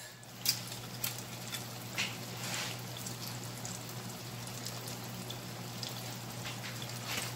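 Breaded fish fillet frying in a skillet of hot oil: a steady sizzle with scattered crackles and pops, over a low steady hum.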